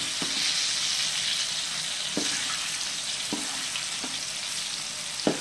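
Battered chicken pieces deep-frying in hot oil in a wok with a steady sizzle. A spatula knocks and scrapes against the wok several times as the pieces are turned, the loudest knock near the end.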